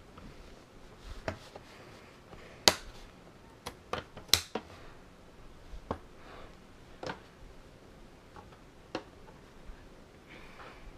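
Scissors snipping at the ties that hold a toy blaster in its cardboard packaging: a string of sharp, irregular clicks and snips, the loudest about three and four seconds in.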